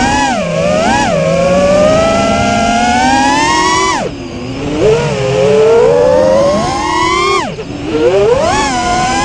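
Armattan Rooster FPV freestyle quadcopter on a 4S battery, its motors and propellers whining through throttle punches. Two quick rises in pitch, then a long climbing whine that cuts off sharply about four seconds in, another climb that drops off about seven and a half seconds in, and a fresh rise near the end.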